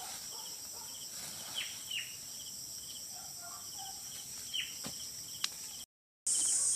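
Insects, crickets or similar, trilling in a steady high-pitched chorus, with a few short falling chirps over it. The sound cuts out for a moment near the end.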